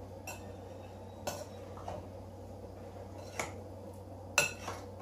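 Metal spoon clinking against a glass mixing bowl while stirring sliced peaches, with about six irregular clinks, the loudest a little over four seconds in.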